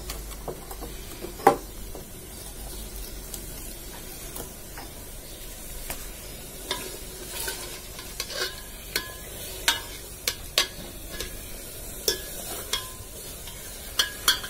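Metal ladle scraping and knocking inside a metal handi as mutton is stirred and fried (bhuna) in its masala, over a steady sizzle. Sharp irregular clicks, one loud knock about a second and a half in, and more of them in the second half.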